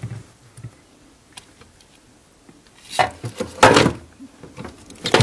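Plastic handling noise from the Samsung RS21DCNS ice maker module and its wiring connector being worked loose by hand: a few faint clicks, then two louder scrapes and rattles about three seconds in.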